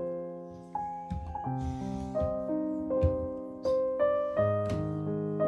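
Gentle background piano music: a slow melody of single struck notes over held chords.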